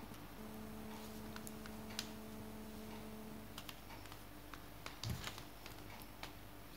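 Faint, scattered clicks and ticks of small plastic curtain hooks being pressed by hand onto plastic curtain-track runners, a stiff fit. A faint steady hum sounds for the first three seconds or so.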